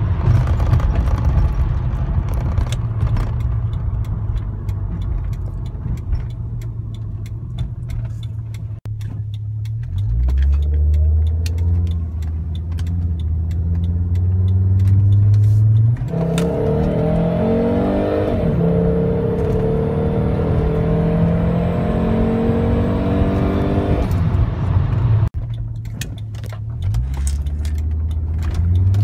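Turbocharged 2.3-litre inline-five (B5234T3) of a 1998 Volvo S70, heard from inside the cabin under hard acceleration. The engine note climbs in pitch, drops at an upshift about 16 seconds in, then climbs again. The sound breaks off abruptly twice, and a new pull begins near the end.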